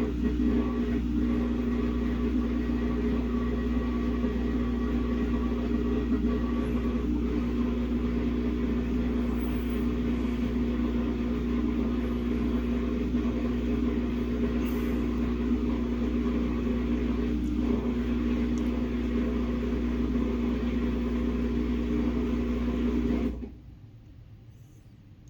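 Samsung WA50R5200AW top-load washing machine running with a steady motor hum on a very imbalanced load of a single pair of pants. The hum cuts off suddenly near the end.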